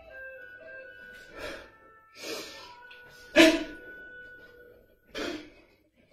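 Sharp, forceful breaths of a Hung Gar practitioner working through his form: about four short bursts, the loudest about three and a half seconds in. Soft background music with held notes runs underneath.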